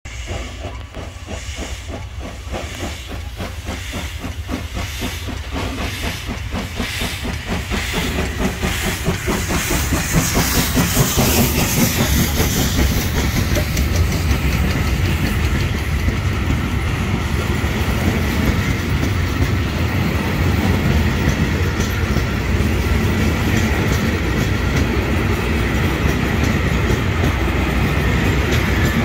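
FS Gr 740 steam locomotive passing, its exhaust beating in an even rhythm, with a burst of steam hiss about ten seconds in. Then a steady rumble and clatter of vintage 'centoporte' passenger carriages rolling past on the rails.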